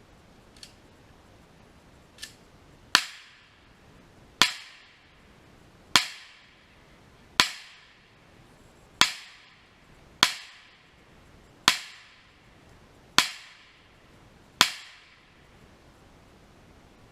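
Semi-automatic rifle fire: nine loud single shots at a slow, steady pace of about one every one and a half seconds, each followed by a short echo. Two fainter pops come before them.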